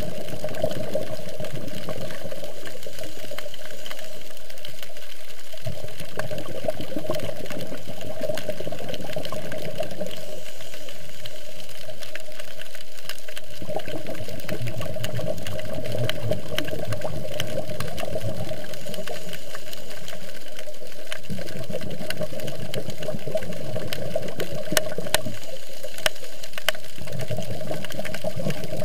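Underwater recording of steady, muffled water noise with a constant hum. A low rumble swells and drops out every few seconds.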